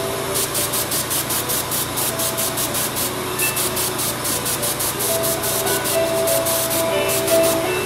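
Airbrush spraying paint: a steady air hiss that pulses about five times a second. Classical piano music plays softly underneath.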